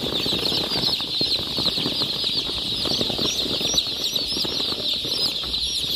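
Many young chicks peeping at once, a dense chorus of short high cheeps. Light scratching and scuffling runs underneath as they move about in a cardboard box.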